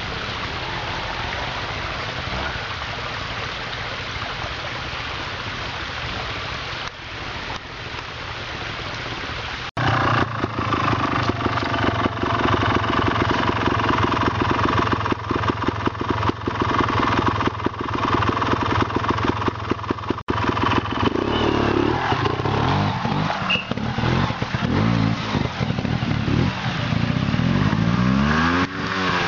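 Trials motorcycle engine. After a steady rushing noise over the first ten seconds, the engine runs loud and close. In the last several seconds it revs up and down repeatedly as the bike is ridden up a rocky stream bed.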